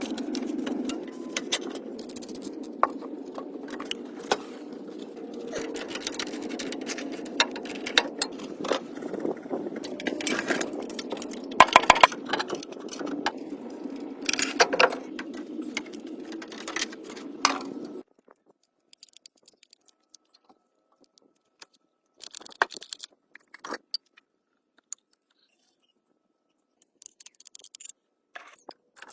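Repeated metallic clinks, knocks and scrapes over a steady low hum. About two-thirds of the way through, the hum and clatter stop abruptly, leaving only scattered faint clicks.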